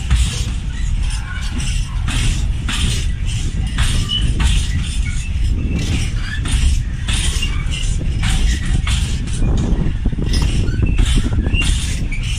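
A train passing close by: a steady heavy rumble with a rapid, uneven clatter of wheels over the rail joints, often in pairs.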